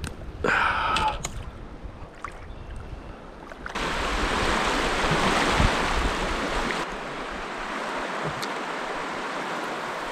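Rushing water of a shallow river riffle around a kayak, loud from about four seconds in and settling to a steadier, slightly quieter rush near seven seconds. A short burst of noise comes about half a second in.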